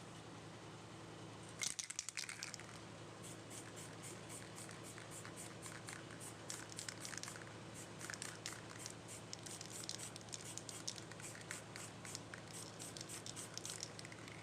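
Hand work on a car tail-light lens: a brief crinkling burst near the start, then many short, irregular scratchy strokes.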